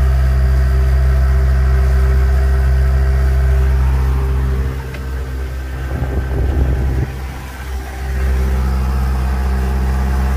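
Boat motor running steadily, a low hum that holds one pitch. For a few seconds in the middle it drops in level and turns rougher, then comes back steady.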